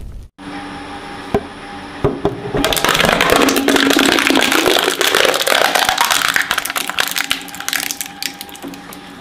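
Twin-shaft shredder with a steady motor hum, giving a few single cracks before it bites into a white model skull and crushes it. The crushing is a dense run of cracking and crunching lasting about five seconds, starting about two and a half seconds in and thinning out near the end.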